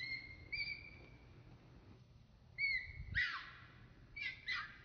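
Baby macaque crying: short, clear, high-pitched squeaks, then harsher squeals that slide down in pitch, several in quick succession in the second half.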